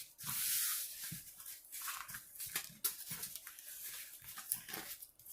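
A rolled diamond-painting canvas being handled and rolled back the other way to flatten it, with crinkly rustling and small crackles throughout, loudest in the first second.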